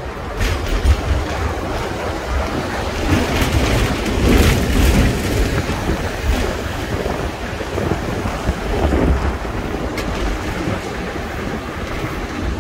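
Hong Kong double-decker tram running along its rails, heard from the upper deck at the open front window, with wind buffeting the microphone in gusts over a low rumble.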